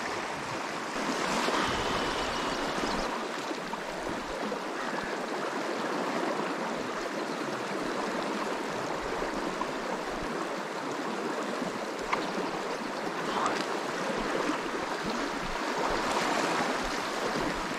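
River current rushing steadily, an even wash of running water that swells a little now and then, with one brief click about twelve seconds in.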